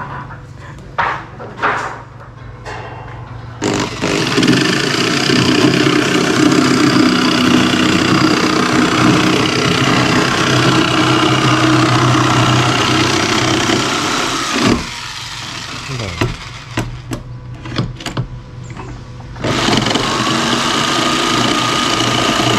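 A motor running loudly in two stretches, each starting and stopping abruptly, with a steady low hum under a dense noise.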